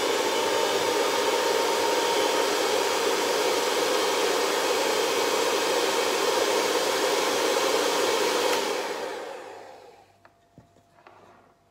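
Electric hand mixer running at low speed, its beaters whipping egg whites into a light foam in a stainless steel bowl: a steady whir that stops about eight and a half seconds in and winds down over a second or so.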